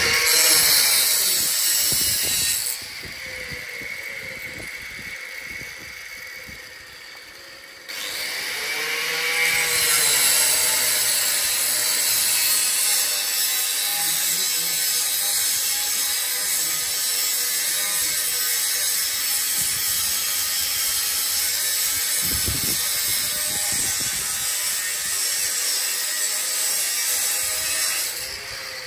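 A power tool running with a loud, hissy grating noise; it drops back about three seconds in, starts up again sharply about eight seconds in, and runs steadily until it stops near the end.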